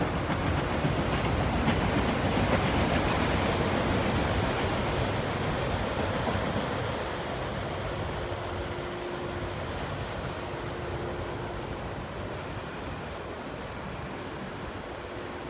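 Freight train autorack cars rolling past on the main line, a steady rumble and clatter of wheels on rail. It builds a little over the first few seconds, then slowly eases off, with a faint steady whine in the second half.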